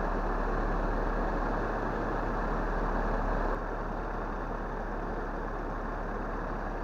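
Steady engine running noise, dropping to a lower level about three and a half seconds in.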